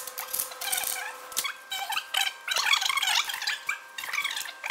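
Distant, indistinct voices of two people talking while they work, with a few small clicks from handling metal parts.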